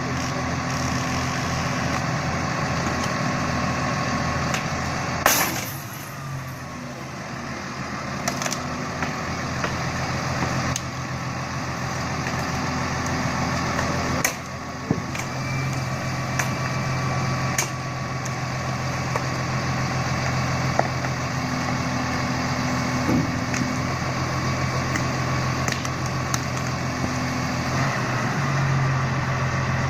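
Heavy forestry machine's engine running steadily, with a few sharp knocks or cracks, the loudest about five seconds in.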